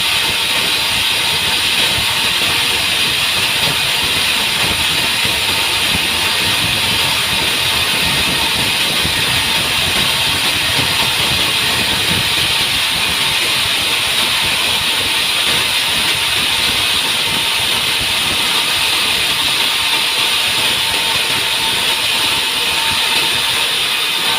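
Sawmill machinery running steadily: a loud, even, unbroken noise, strongest in the upper middle range, with a faint steady hum-like tone.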